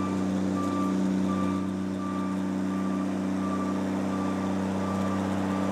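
A heavy construction vehicle's diesel engine running steadily while its reversing alarm beeps, a short high beep about every 0.7 seconds, as the vehicle backs up.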